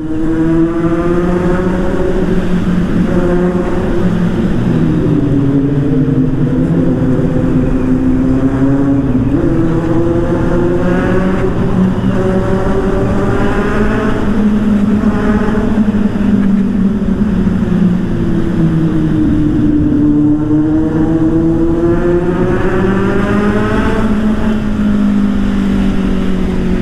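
Motorcycle engine running at road speed, its pitch sweeping slowly down and up several times as the rider eases off and opens the throttle. Much of it is heard inside a road tunnel.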